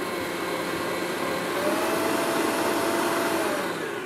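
Electric stand mixer running at speed, its beater whipping butter, sugar and strawberry jelly into a cake batter: a steady motor whir. Near the end the pitch falls and the sound dies away as the motor slows.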